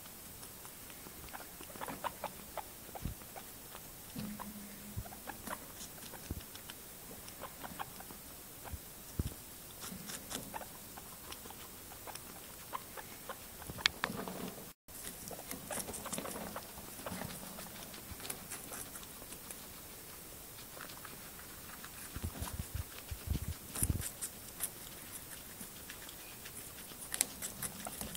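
Abyssinian guinea pigs chewing cucumber: irregular small crunches and clicks of their teeth on the slice.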